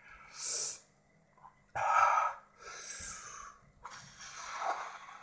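A man breathing hard through the burn of a superhot chili pepper: a short hissing breath about half a second in, a louder forceful huff around two seconds in, then softer puffs of breath out through pursed lips.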